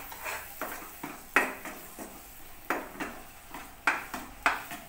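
A steel spoon scraping and stirring a thick masala paste in a non-stick kadai, in a series of short, sharp scrapes at an uneven pace of roughly one a second.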